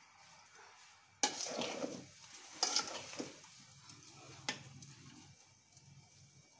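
Raw mango pieces being stirred in a steel bowl: irregular scrapes and clinks of a utensil against the steel, with a sharp tap about four and a half seconds in.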